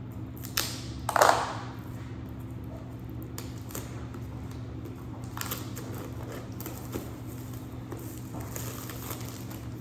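Packaging being handled and crushed, with a loud crumple about a second in and scattered softer crinkles after, over a steady low hum.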